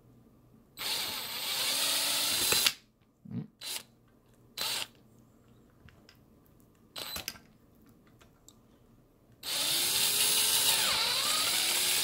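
Cordless drill on a low torque setting backing out a long flathead screw from a door lock's inner rosette: a motor run of about two seconds near the start, a few short blips and clicks, then a longer run from about nine and a half seconds on, its pitch dipping and rising as the screw turns.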